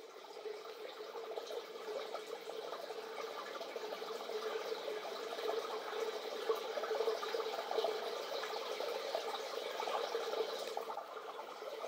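Electronic soundscape texture: a crackling, water-like noise fades in over the first couple of seconds and runs on over a steady hum.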